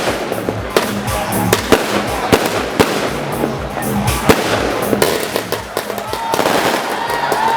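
Fireworks bursting in rapid, irregular bangs, with music playing underneath.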